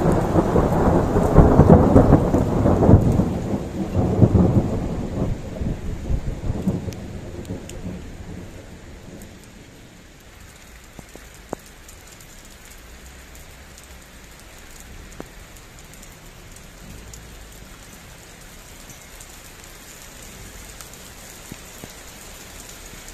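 A long roll of thunder, loudest in the first few seconds and rumbling away over about seven seconds, then steady rain with a few sharp ticks of drops close by.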